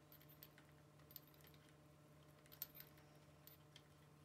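Near silence with a low steady hum and a few faint, scattered clicks of a hex driver lightly tightening an M6 button-head bolt into a bicycle bar-end shifter.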